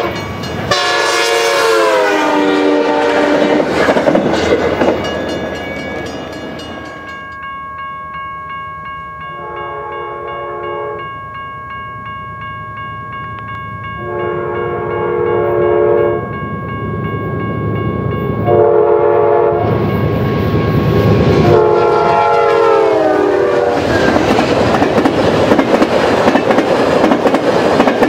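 A passing commuter train's chord horn, its pitch dropping as it goes by. Then an Amtrak P42 locomotive's multi-chime horn sounds the grade-crossing pattern of long, long, short, long, its pitch dropping on the last blast as the locomotive passes. The Superliner cars follow, rumbling and clacking past at speed.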